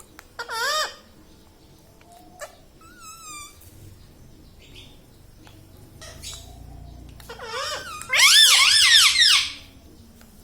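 Ringneck parrot calling: a short wavering call just after the start, a high warbling whistle about three seconds in, and a loud, rapidly wavering call lasting about a second and a half near the end.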